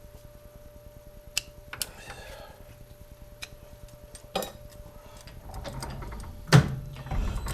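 Scattered clicks and knocks of a metal lathe being worked, with a loud clunk about six and a half seconds in, then the machine's low running noise building up near the end.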